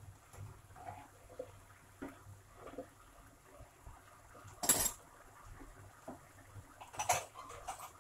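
Plastic spatula working in a nonstick frying pan of zucchini, mushrooms and onion: a few faint scrapes and taps, then a sharp clack about halfway through and a couple more clacks near the end.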